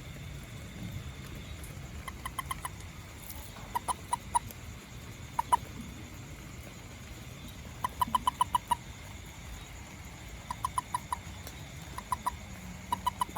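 An animal giving short, sharp chirps in quick runs of two to seven, about seven a second, repeated several times with pauses between.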